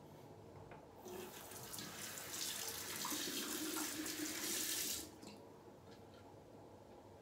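Bathroom tap running into a sink for about four seconds, turned on about a second in and shut off sharply near five seconds.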